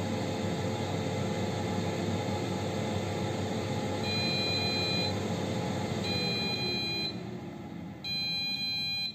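Philips HD9260 XL airfryer running with a steady fan whir. It beeps three times, each beep about a second long, as its timer reaches zero to signal that cooking is done. About six seconds in, the fan starts winding down and its hum falls in pitch.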